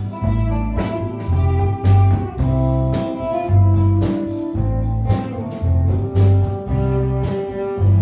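A live band playing: electric guitar and drums over a deep bass line, with a strong beat about once a second.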